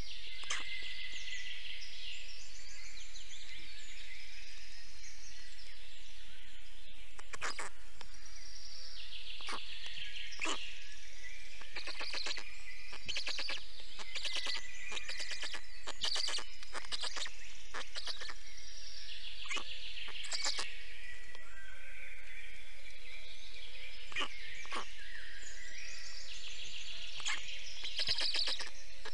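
Small forest songbirds singing in high, repeated trills, with short clicks scattered through, over a steady background hiss.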